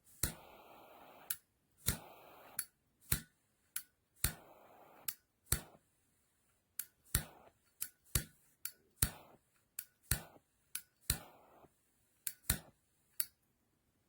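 A flip-top gas lighter clicked open and shut over and over. Several times a click is followed by about a second of steady gas hiss that ends with another click.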